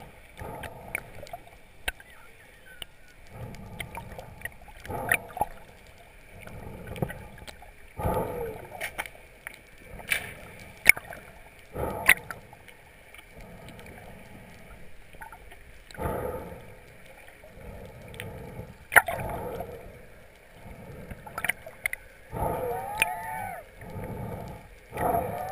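Water sounds around an underwater camera: irregular sloshing and gurgling swells every second or so, with sharp clicks. A few short wavering pitched sounds come near the end.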